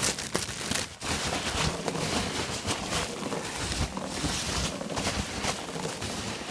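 Packaging being handled and unpacked from a box of dry rock: a steady rustling and crinkling, with irregular small clicks and knocks.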